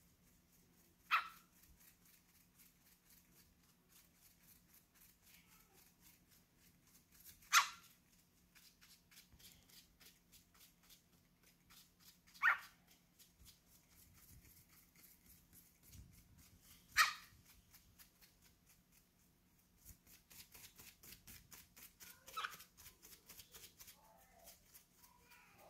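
A cockatiel giving short, sharp, harsh calls, five in all, about five seconds apart, with faint rapid clicking between them.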